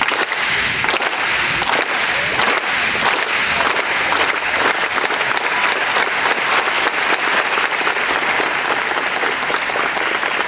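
Large crowd of kids applauding steadily, a dense patter of many hands clapping.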